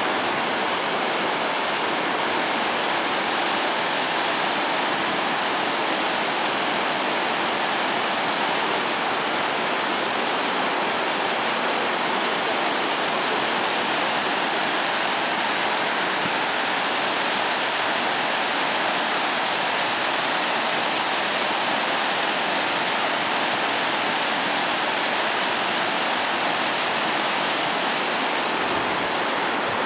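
Floodwater rushing and churning through a breach in a washed-out road bridge, a steady unbroken noise of fast-flowing water.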